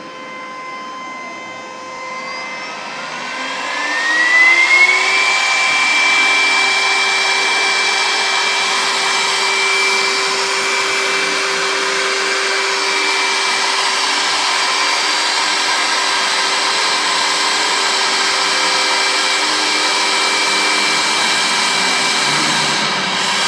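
Spindle motor of a multi-head CNC router speeding up, with a whine rising in pitch over about three seconds, then running at a steady high speed with a hiss underneath. The whine begins to fall right at the end as the spindle slows.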